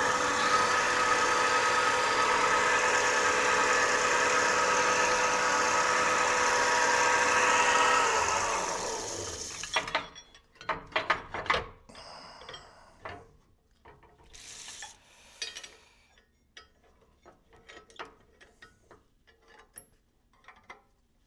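Pre-1920s Brown & Sharpe metal lathe running with a steady multi-toned whine, then switched off and winding down to a stop about eight to ten seconds in. After it stops come scattered sharp metal clicks and knocks of parts being handled on the machine.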